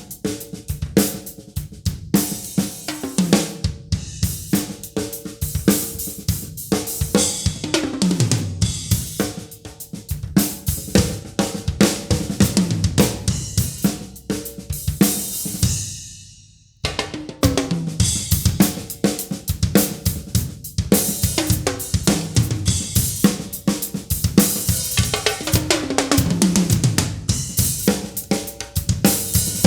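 A drum kit being played: bass drum, snare, hi-hat and cymbals in a steady groove with fills. Just past halfway the sound fades away to near silence, then the playing starts again about a second later.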